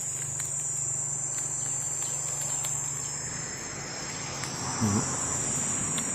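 Insects droning in a steady high-pitched chorus, with a faint low hum that fades out about halfway. One short low call is heard about five seconds in.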